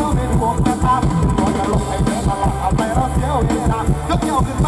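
Mor lam band playing live through a loud PA: a steady driving drum and bass beat under a wavering, gliding melody line.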